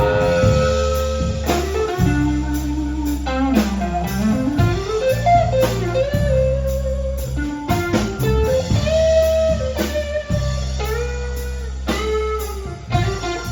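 Blues band playing an instrumental passage: an electric guitar plays a lead line with notes bent up and down in pitch over a steady bass line and drums.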